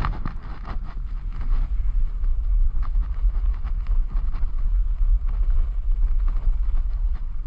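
Wind rumbling on the microphone of a camera carried by a moving skier, with the hiss and scrape of skis running over packed, tracked snow.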